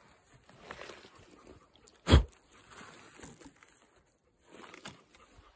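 A hand digging and scraping in forest soil and pine-needle litter to work loose a matsutake mushroom: crunching and rustling, with one sharp loud thump about two seconds in.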